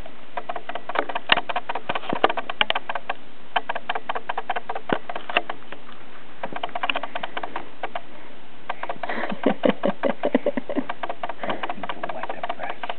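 Grooming brush scratching through a cat's fur in quick, irregular strokes, with rustling as the cat squirms against it.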